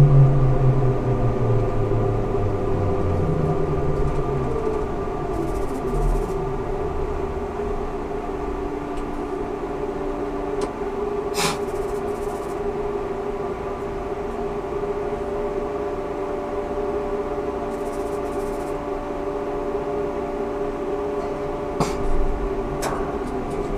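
Ikarus 280T trolleybus's electric drive and equipment humming with several steady tones, a falling whine in the first few seconds as the trolleybus slows, then a steady hum. A sharp click sounds about halfway through, and another near the end.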